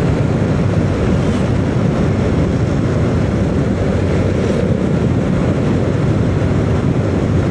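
Steady running noise of a vehicle on the move along a paved road: engine hum mixed with tyre and wind noise, even throughout.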